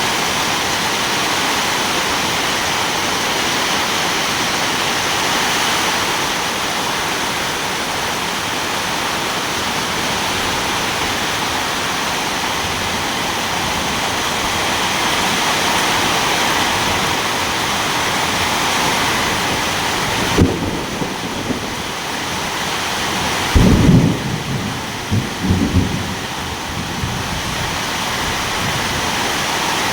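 Steady rain, with a sharp crack of thunder about two-thirds of the way in and a louder low rumble of thunder a few seconds later.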